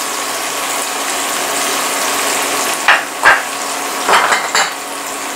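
Papdi (flat beans) sizzling in hot oil in a frying pan, a steady hiss, with a few short clinks of a metal spoon about three and four seconds in as sugar is spooned over them.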